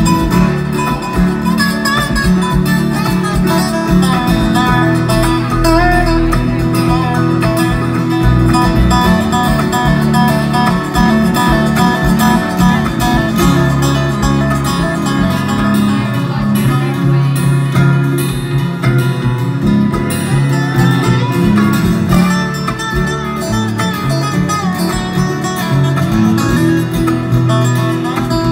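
Live bluegrass band playing an instrumental passage, with a dobro played lap-style with a slide, its notes gliding over strummed guitar and bass.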